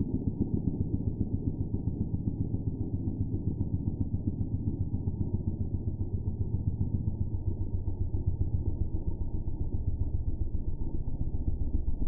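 Electric arc and microwave-oven-transformer buzz from a resonant MOT arc setup, heard slowed down in slow motion: a deep, low drone pulsing rapidly and evenly.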